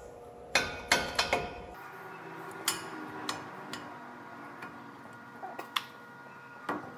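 Metal brake parts clinking and knocking as the front brake caliper and pads of a 2007 Dodge Dakota are handled and worked loose by hand. There is a quick cluster of knocks early on, then single clicks every second or so.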